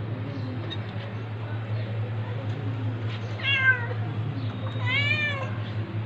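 Domestic cat meowing twice: a short falling meow about three and a half seconds in, then a longer meow that rises and falls about a second later, over a steady low hum.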